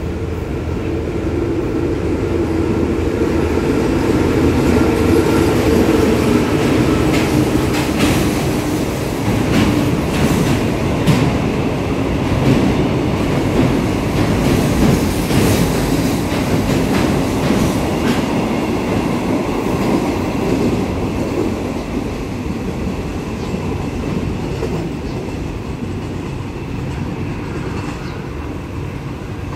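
A diesel-hauled container freight train passing through a station. The GEA-class diesel locomotive's engine grows louder as it comes by. The container wagons then rumble past with their wheels clacking over the rail joints, and the sound slowly fades near the end.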